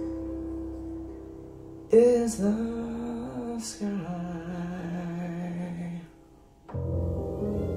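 Jazz vocal music playing through SVS Prime Wireless Pro speakers and picked up by room microphones. A held note fades, then a sung phrase comes in suddenly about two seconds in. The music drops out briefly after about six seconds and starts again a moment later.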